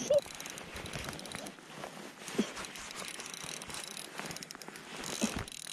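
Shimano Ultegra C2000S spinning reel being cranked, its gears and rotor clicking steadily as line is wound in, with a few short squeaks.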